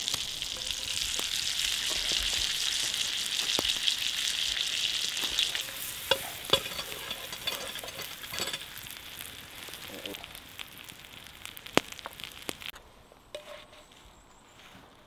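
Sliced cep mushrooms frying in butter in a steel pan over a campfire: a steady sizzle with sharp pops here and there. It is loudest in the first half, fades, and stops near the end.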